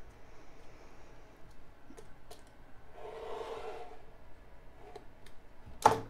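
A utility knife blade drawn along a steel ruler, slicing through heavy watercolor paper in one scratchy stroke about a second long in the middle. Near the end comes a sharp clack, the loudest sound, as the knife is set down on the cutting mat, with a few light clicks of the ruler and knife being handled before it.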